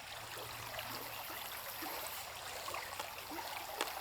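Steady rush of a flowing mountain stream, with a few faint short chirps and one sharp click near the end.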